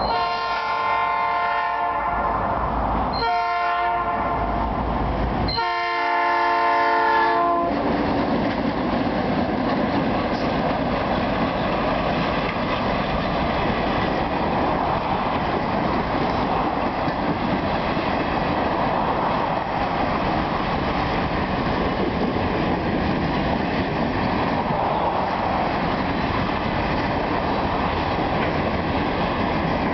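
Freight locomotive horn sounding for a grade crossing: a long blast, a short one, then a long one, all within the first eight seconds. After that comes the steady rumble and clatter of a long train of covered hopper cars rolling past.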